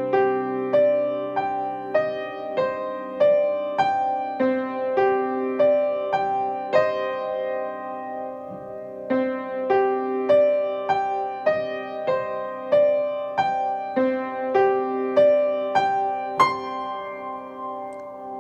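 Solo piano playing a slow, simple piece in steady even notes over held lower notes, ending on a louder chord near the end that rings on and fades.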